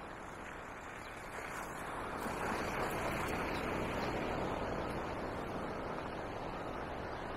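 Steady rush of wind and road noise from riding an electric scooter, swelling about two seconds in and slowly easing off.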